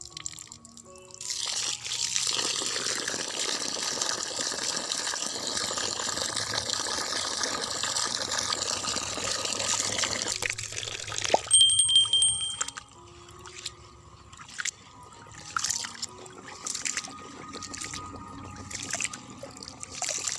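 Water pouring steadily onto rice in a vessel for about nine seconds, then stopping suddenly. Then a brief knock and irregular swishes and splashes as the rice is washed by hand, over soft background music.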